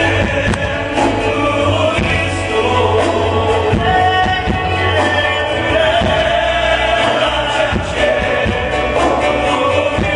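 Live gospel music: a choir singing over band accompaniment with a steady beat.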